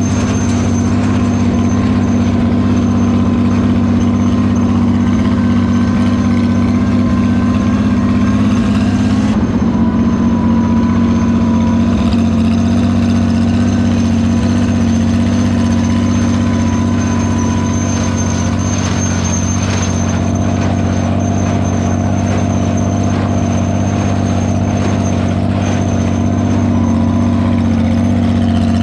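Farmall 460 tractor engine running steadily, with a slight shift in pitch about nine seconds in and a thin high whine over it.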